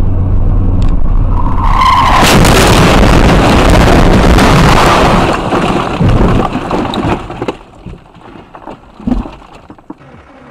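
Car crash heard from inside the car: loud road noise, then a brief tire squeal about a second and a half in, followed by a few seconds of loud crashing and scraping as the car goes off the road, with knocks as it settles. Near the end the sound drops to quieter traffic noise with a single thump.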